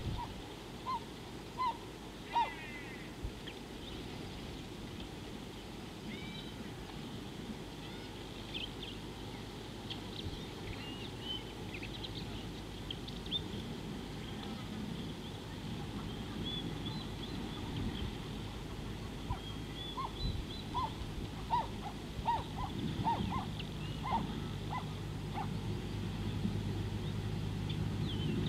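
Egyptian geese giving short calls: a few near the start, then a run of about a dozen in the second half. Small birds chirp higher up throughout.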